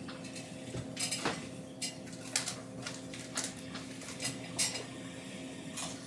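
Light clinks and clicks at irregular intervals, about a dozen in all, over a faint steady hum.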